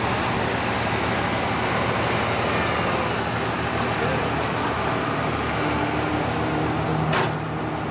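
Steady vehicle engine noise with voices in the background, broken by a sharp click about seven seconds in, after which the hiss eases slightly.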